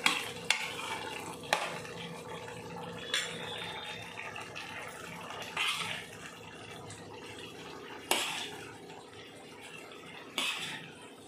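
Steel ladle stirring a thick curry in a steel kadai, with sharp clinks as it knocks against the pan about every one to two and a half seconds. Near the end a ladleful is scooped out into a bowl. A faint steady hum runs underneath.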